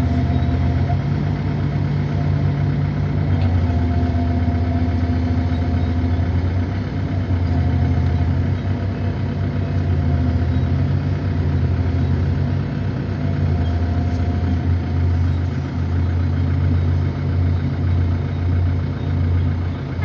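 Heavy diesel earthmoving machinery running steadily: a continuous low engine drone that shifts a little in pitch.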